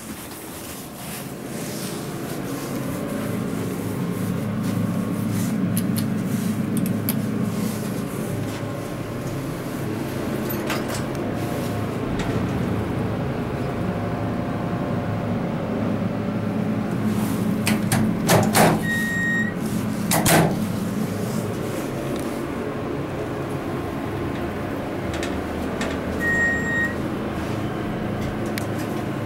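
Hydraulic passenger elevator running, heard from inside the cab: a steady low hum that builds over the first few seconds and holds. Two loud clunks come a little past the middle, and a short high electronic ding sounds twice, once with the clunks and once near the end.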